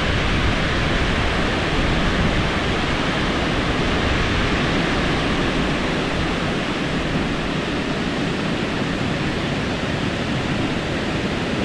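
Steady rush of water pouring over a concrete weir into a foaming, churning pool below.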